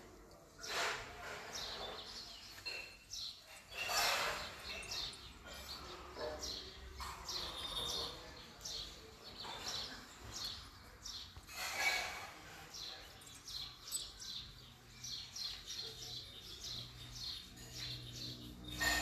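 Small birds chirping: many short, high chirps through a fairly quiet background.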